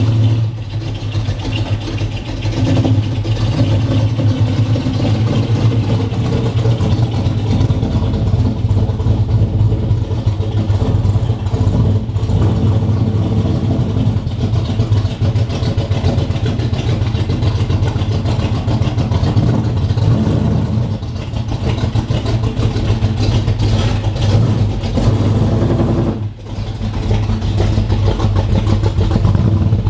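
1964 Chevelle's engine running steadily at a low, even speed, with a brief drop in level near the end.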